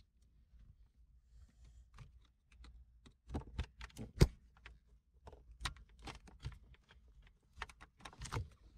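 Irregular small clicks and knocks from hands and a tool working at a Porsche Panamera 4S gear shifter and its console trim, trying to free the shifter. One sharper knock comes a little past four seconds in.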